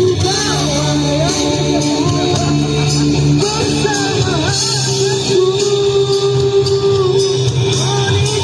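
Karaoke: a man singing into a microphone over a music backing track, holding one long note about halfway through.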